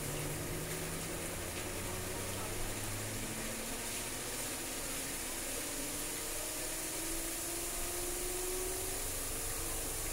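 Chicken curry in coconut milk boiling hard under a glass lid, a steady bubbling hiss.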